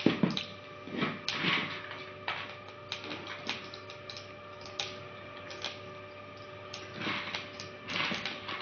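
Cumin seeds frying in hot mustard oil in a kadai, crackling and popping irregularly, a few sharp pops a second, as the seeds begin to splutter.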